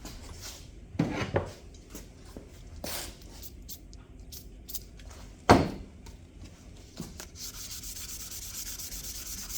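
A few knocks and clatters of things being handled and set down, the loudest about halfway through; then, near the end, a steady hiss of hand sanding starts as fine sandpaper and oil are rubbed over a metal door lock plate.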